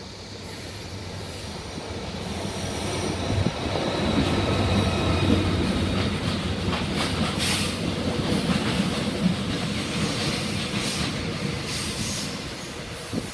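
Diesel freight locomotive running past close by, its engine rumble building as it approaches. Loaded coal wagons then roll past with their wheels clattering over the rail joints and squealing.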